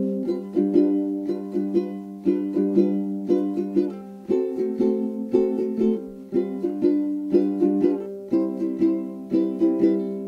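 Background music: a light plucked-string tune of quickly struck, fading notes at a steady pace.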